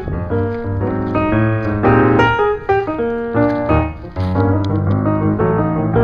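Background music: piano-led track with a steady bass line, notes changing several times a second.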